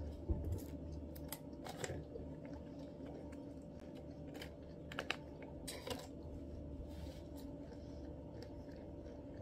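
Peanuts being chewed: faint, scattered crunching clicks, a few louder ones, over a steady low hum.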